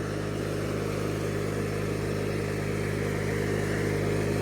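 A 1997 MTD Yard Machines riding lawnmower's engine running steadily while the mower is driven, growing slightly louder toward the end; it sounds healthy.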